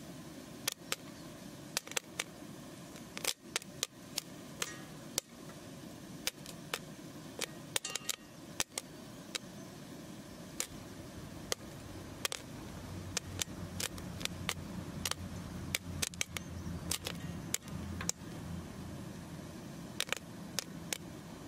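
Popcorn kernels popping in a metal pan: irregular sharp pops, roughly two a second, sometimes several close together. A low steady hum joins about halfway through.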